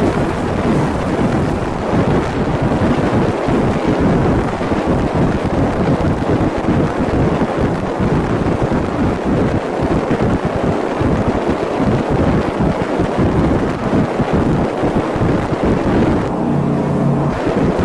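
Wind buffeting the microphone on a moving motorboat, with the boat's engine running underneath. Near the end the wind drops for about a second and the engine's steady hum comes through.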